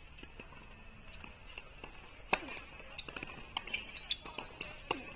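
Tennis balls struck on an outdoor hard court: a sharp racket-on-ball impact about two seconds in, the loudest sound, followed by several lighter clicks and taps of ball bounces and shoes on the court.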